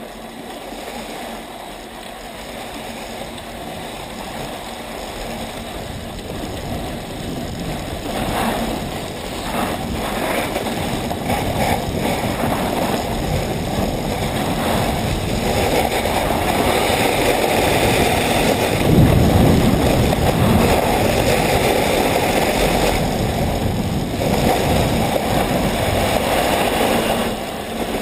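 Rushing air on the microphone and the hiss of skis sliding over packed snow, growing steadily louder as speed builds on a straight downhill run.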